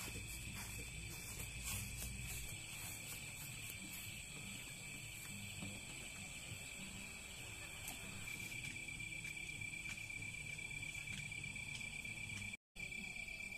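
Crickets chirring in a steady high-pitched night chorus, with a few light clicks in the first half.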